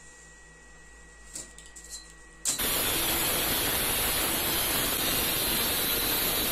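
Angle grinder with a cut-off disc cutting through 3 mm steel plate: a loud, steady grinding noise that starts abruptly about two and a half seconds in. Before it, only a couple of faint clicks.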